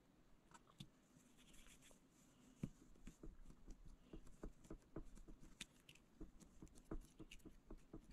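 Fingertips pressing and working clay into a small silicone mould: faint, irregular soft taps and rubbing clicks. They come more often from about two and a half seconds in.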